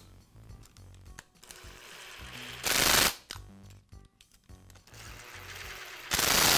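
Cordless screwdriver driving the screws that secure a replacement field in a polisher's plastic motor housing: two runs, each building up and ending in a short, loud rattling burst as the screw seats.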